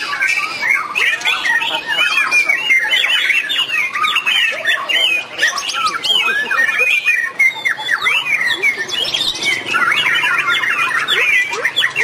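Several white-rumped shamas singing at once in a busy contest chorus. Their rapid whistles, chirps and harsh notes overlap without a break.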